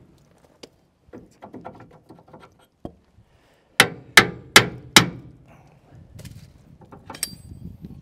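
A bare hammer head striking a steel bar held as a punch against a rusted dump-bed hinge pin, metal on metal, to drive the pin out: light taps and scrapes at first, then four hard blows in quick succession about four seconds in, and a lighter ringing clink near the end.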